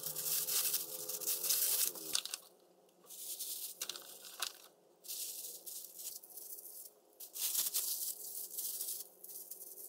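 Plastic food packaging crinkling and tearing in irregular bursts, handled while portioning thawed duck meat.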